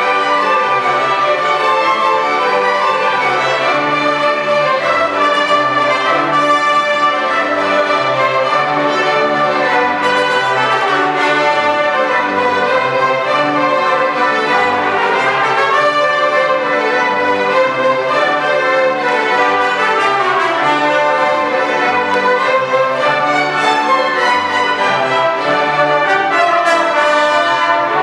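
Symphony orchestra playing an orchestral arrangement of Mexican sones, strings and winds together with the brass to the fore.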